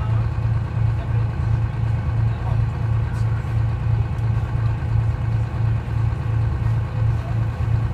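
Detroit Diesel 6V71 two-stroke V6 diesel of a GMC New Look bus running at a steady speed, a low throbbing engine note with an even pulse.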